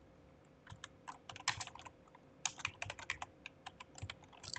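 Typing on a computer keyboard: irregular bursts of quick keystrokes, starting a little under a second in.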